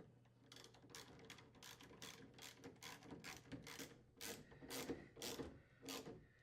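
Faint ratchet wrench clicking in a quick series of strokes, about two to three clicks a second, as screws are driven in to secure a refrigerator's lower door hinge to the frame.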